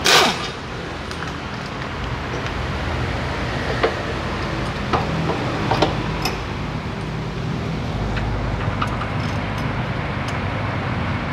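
A pneumatic impact wrench fires one short burst on a front strut-to-knuckle bolt. After it comes steady workshop background noise with a few light metallic clicks of tools being handled.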